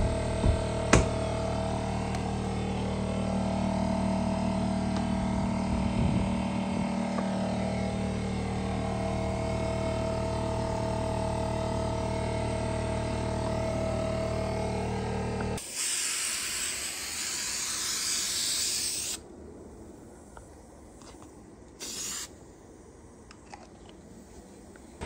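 A motor runs steadily for about fifteen seconds and stops. A loud hiss follows for about three seconds, and a second, short hiss comes near the end.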